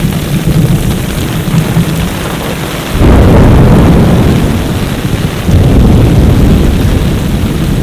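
Heavy rain pouring, with a loud low rumble under it that swells up abruptly about three seconds in and again a couple of seconds later.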